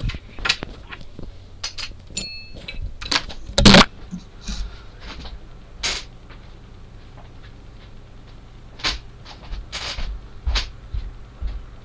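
Irregular light clicks and knocks, with one louder knock about four seconds in and a short electronic beep near two seconds.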